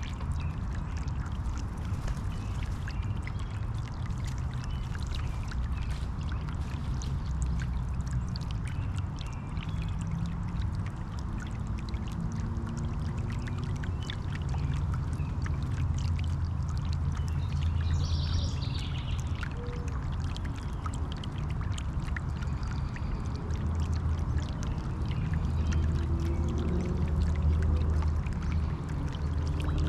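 A solar bird bath fountain pump sprays water that splashes and trickles steadily back into the basin, with fine dripping ticks, over a constant low rumble.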